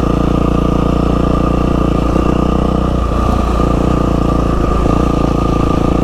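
2012 Yamaha WR450F's single-cylinder four-stroke engine running at a steady, even pitch while the bike cruises slowly.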